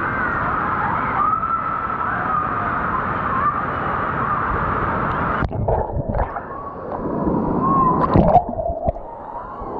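Wave-pool water sloshing and washing over an action camera at the surface, with voices echoing in the background. About halfway through the camera goes under: the sound turns muffled and gurgling, with a splash as it breaks the surface again near the end.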